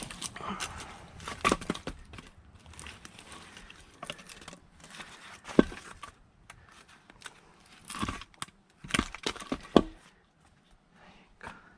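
Irregular wooden knocks and clacks with crackling and rustling, from split firewood and wood debris being handled; a few sharper, louder knocks stand out, the strongest about halfway through.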